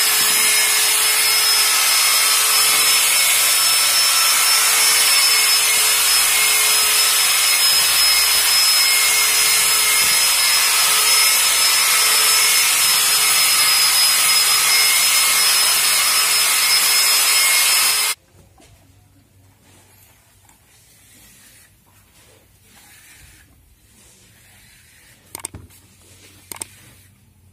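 Corded electric drill with a paddle mixer running steadily in a bucket of travertine plaster, a constant motor whine over the churning of the mix. It cuts off suddenly about two-thirds of the way through, leaving a faint background with a couple of short knocks near the end.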